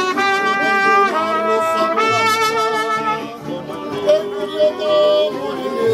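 Mariachi band playing: trumpets hold three long notes, then play shorter phrases, over violin and guitar.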